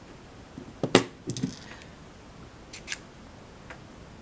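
Handling of a disassembled pin-tumbler lock and small tools on a bench: a sharp metallic click about a second in, a few smaller clacks right after, and two light ticks near three seconds.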